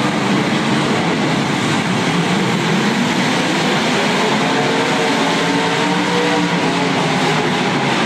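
Several demolition derby cars' engines running and revving together, a loud continuous din with wavering engine pitches.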